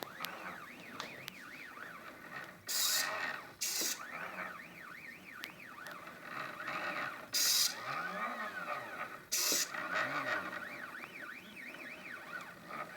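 Stepper motors of a homemade CNC plotter built from scanner and inkjet-printer mechanisms, moving its axes. Their whine keeps rising and falling in pitch as each move speeds up and slows down. Four short bursts of hissing noise cut in between the moves.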